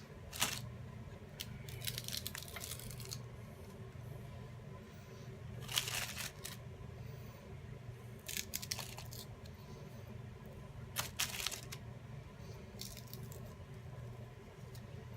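Water-soaked paper, chilled stiff in a refrigerator, being torn and crunched by hand in a series of short crackling bursts, with pauses between them.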